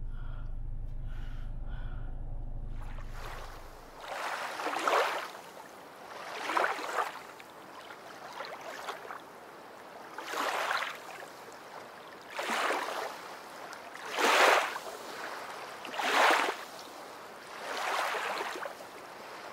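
Low road rumble inside a moving car, which stops about four seconds in. It gives way to a regular series of whooshing swells, one about every two seconds, each louder than the rumble.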